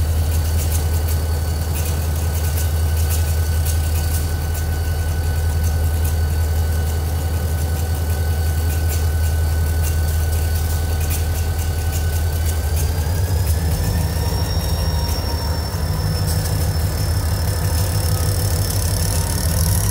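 Diesel locomotive of the New York, Susquehanna & Western idling with a steady low drone, then throttling up about two-thirds of the way through as it starts to move, the engine note rising along with a thin high whine.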